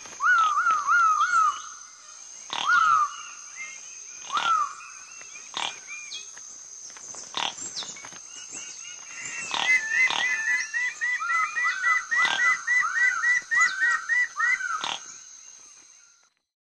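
Raggiana birds-of-paradise calling during their group courtship display: loud, arched notes repeated in quick runs, single calls between, and from about the middle a fast overlapping chorus of higher and lower notes. A steady high insect drone runs beneath, and all fades out near the end.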